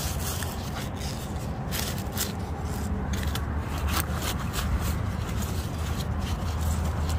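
Wild garlic (ramsons) leaves rustling and crackling as they are cut and pulled by hand, with irregular crisp snips and clicks.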